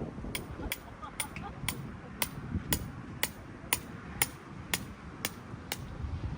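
A tent peg being driven in with a hammer: about a dozen sharp, even strikes, two a second, stopping near the end, over wind noise on the microphone.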